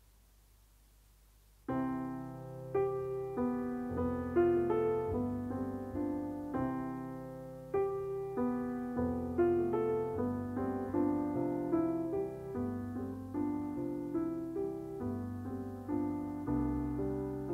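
Solo piano playing on after the singing has ended, entering after about a second and a half of near silence with a steady run of struck notes and chords, each dying away.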